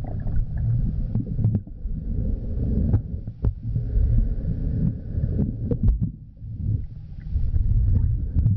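Muffled underwater rumbling and throbbing of water churned by an English Mastiff paddling close to an underwater camera, with scattered sharp clicks and bubble pops.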